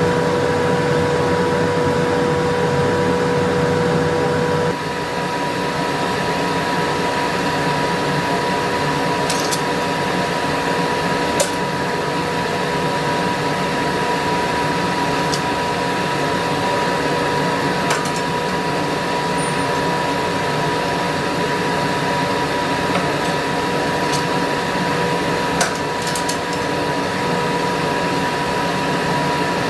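A forge running steadily, a blower-like rush with a constant hum; about five seconds in the hum changes and the sound gets slightly quieter. A few faint clicks sound now and then.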